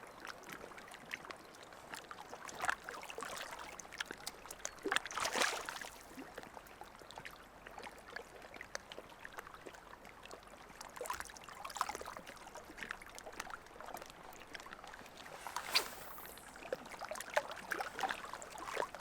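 Lake water trickling and splashing at the shore, with scattered small splashes and clicks and two louder splashes, about five seconds in and again near sixteen seconds.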